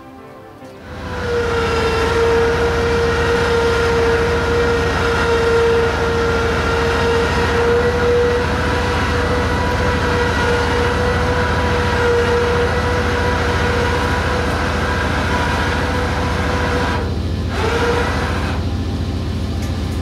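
Suzuki DR650's single-cylinder engine running steadily, a low hum with a steady whine over it. Near the end the whine stops and a lower hum carries on.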